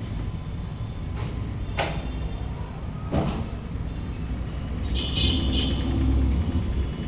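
Rumbling handling noise from a phone carried down a stairwell, with sharp knocks about one, two and three seconds in. A brief high-pitched sound comes about five seconds in.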